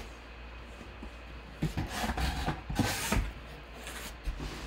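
Cardboard packaging being handled: rubbing and scraping with a few short knocks, starting about a second and a half in and dying down after about two seconds.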